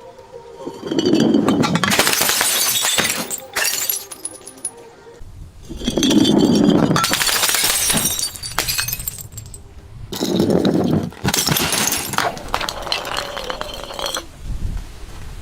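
Glass bottles being crushed and breaking three times, each a loud crunch and shatter lasting a couple of seconds, with shards clinking in between.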